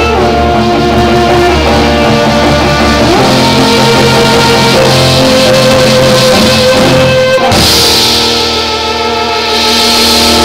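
Live cello rock: several cellos bowing loud, sustained chords over drums, with a crash of cymbals about seven and a half seconds in that washes on to the end.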